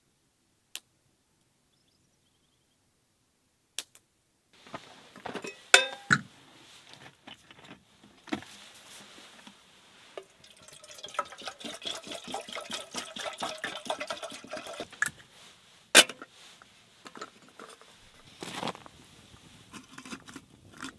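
Liquid being poured into a container for several seconds, amid clinks and knocks of camp cookware being handled, with one loud knock after the pouring stops.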